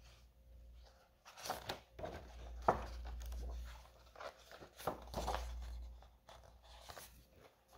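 Pages of a comic book being turned by hand: paper rustling and crinkling in several short flips, with low bumps from handling the book.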